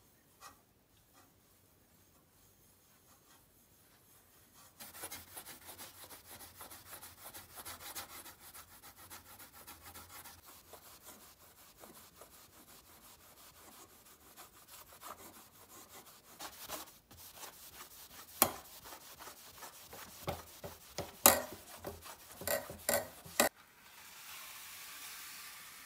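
The steel blade of a sickle being rubbed briskly by hand with an abrasive pad, a fast run of scratchy strokes that starts about five seconds in. Several sharp knocks of the metal against the stone bench follow near the end, then a soft hiss.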